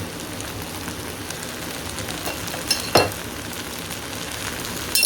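Chicken fried rice sizzling in a hot pan, ghee just poured in, with a few sharp knocks of a utensil against the pan, the loudest about three seconds in.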